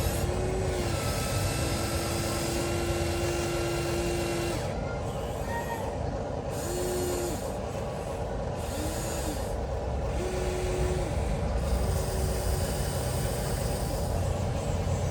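Small electric gear motors of a 1:14-scale Huina RC excavator whirring in short runs, starting and stopping as the functions are worked, over a steady rough mechanical noise.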